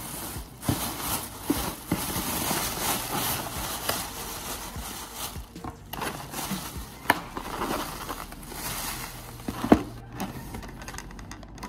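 Thin plastic carry-out bag rustling and crinkling as a foam clamshell takeout box is pulled out of it and handled, with a few sharp knocks as the box is set down on the counter.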